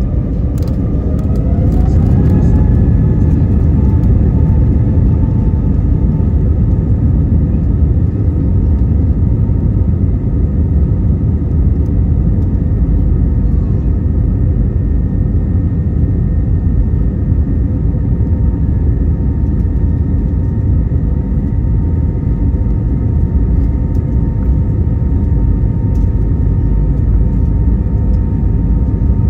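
Airbus A320neo's CFM LEAP-1A turbofan engines heard from inside the cabin. The engine whine rises in pitch and the noise grows over the first two to three seconds as thrust builds, then holds at a steady drone over a heavy low rumble.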